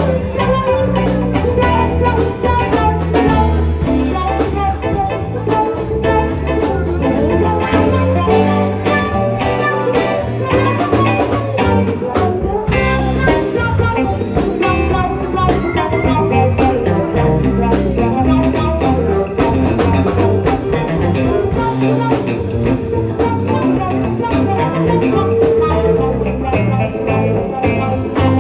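Live rock band playing an instrumental passage: electric guitar, bass and drum kit.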